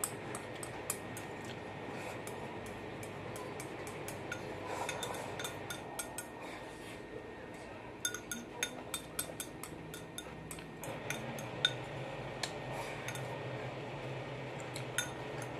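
Chopsticks clicking and scraping against a ceramic bowl while eating: many small, irregular clicks.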